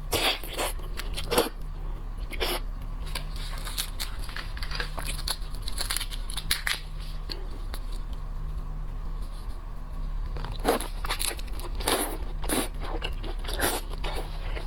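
Shrimp and crab shells being cracked and torn apart, with scattered sharp crunches in clusters near the start and again in the last few seconds, over a steady low hum.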